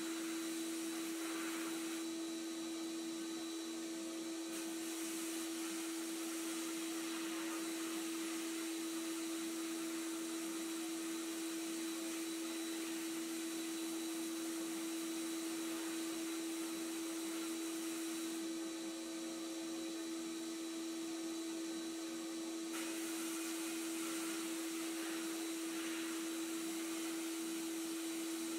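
Media blast cabinet running: a continuous hiss of abrasive blasting from the nozzle against a pressed-steel toy truck cab, stripping its old paint and rust, over a steady low hum.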